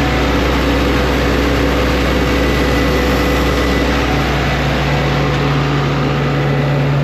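Engine of a sandblasting rig running steadily at constant speed, a low hum under a broad hiss. The hum grows stronger about four seconds in.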